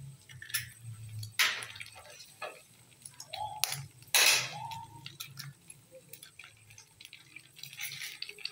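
Raw eggs being cracked open by hand over a frying pan: several sharp cracks and taps of eggshell, the loudest a little past four seconds in.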